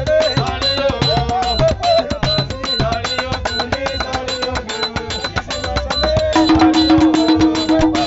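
Music with a fast, steady drum beat under a gliding melody line; about six seconds in, a held low note comes in and the music gets louder.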